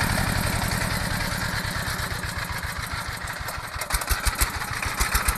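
Small water-pump engine running with rapid low firing pulses that weaken and fade toward the middle, then several loud uneven knocks near the end as it picks up again: the engine is misfiring.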